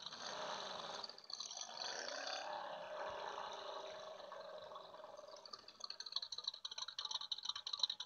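Faint hiss with a weak wavering tone, then from about two-thirds of the way in, rapid light clicking like typing on a keyboard.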